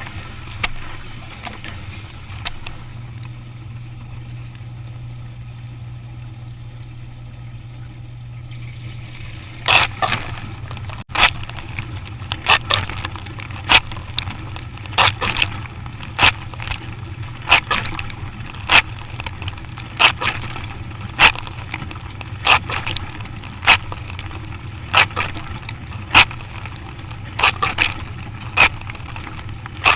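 A machine running with a steady low hum. From about ten seconds in, sharp clicks or knocks repeat roughly once or twice a second.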